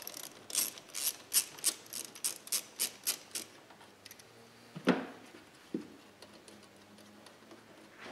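Ratchet wrench clicking in quick, even strokes as it turns out a 10 mm bolt, stopping about three and a half seconds in. Near five seconds there is a single louder knock, then a lighter one.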